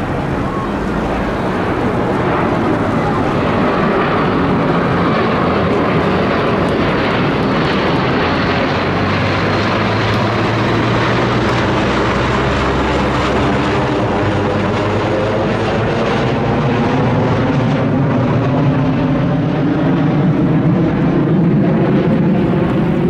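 Formation of Blue Impulse Kawasaki T-4 jet trainers passing overhead: loud, steady jet-engine noise that builds over the first few seconds, with a sweeping, phasing quality through the second half as the jets move across the sky.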